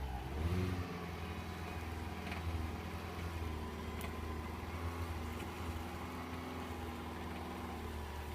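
Car engine running steadily at low revs while the car tows wood on a rope, with a few faint clicks.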